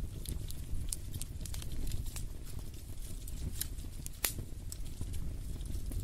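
Wood fire crackling in a fireplace: scattered sharp pops and snaps over a steady low rumble, with one louder snap about four seconds in.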